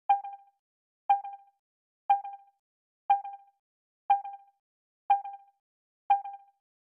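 A short pitched ping repeating exactly once a second, seven times, each struck sharply and dying away within about half a second.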